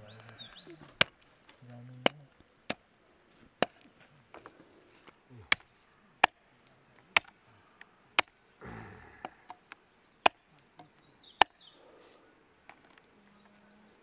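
Goat meat being chopped with a heavy blade: single sharp strikes, roughly one a second and unevenly spaced.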